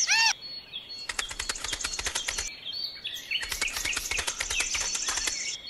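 Two runs of rapid, even ticking trills, about a second and two seconds long, over a thin steady high tone.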